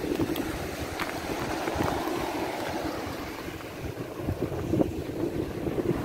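Wind buffeting the microphone over the wash of surf on the shore, with a few faint crunches of footsteps on a beach strewn with seashells.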